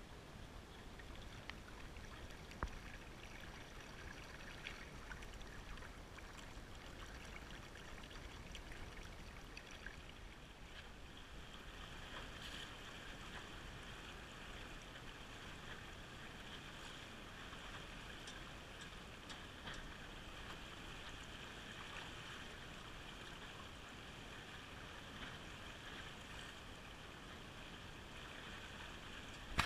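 Water rushing and gurgling steadily along the hull of a Fusion 15 sailing dinghy under sail, with a few faint ticks.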